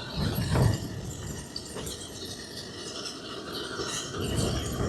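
MSR Dragonfly petrol stove burning steadily like a gas burner, fully warmed up and pressurised. Low gusts of wind buffet the tent in the first second and again near the end.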